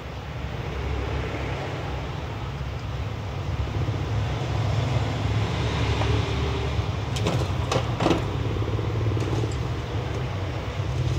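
A steady low rumble like a running motor vehicle, with a few light clicks of small tools and parts being handled about seven to eight seconds in.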